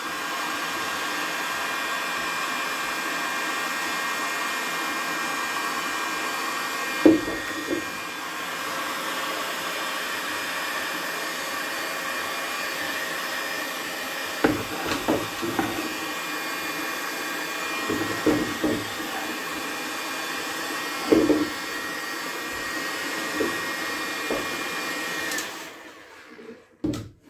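Electric hot-air heat gun blowing steadily, its fan giving a constant whine, as it heat-shrinks a PET bottle onto a wooden mould. A few short knocks come as the bottle is handled, and the gun stops near the end.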